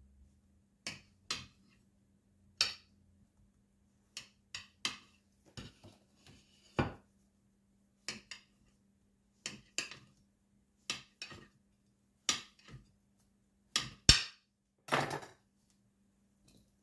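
Kitchen knife cutting a loaf of bread into cubes, its blade knocking down onto the cutting board at the end of each cut: about twenty sharp taps at irregular intervals, with one slightly longer one near the end.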